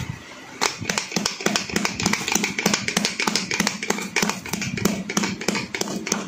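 Wooden rolling pin pounding a chicken breast flat through plastic wrap on a wooden cutting board: a quick, steady run of knocks, about four or five a second, starting about half a second in.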